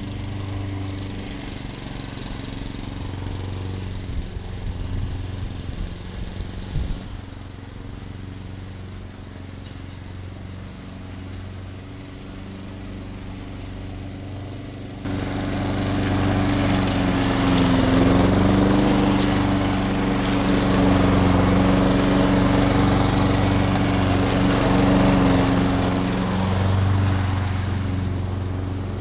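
Petrol walk-behind lawn mower engine running steadily under load. About halfway through it suddenly becomes much louder and gains a rushing hiss as it works close by.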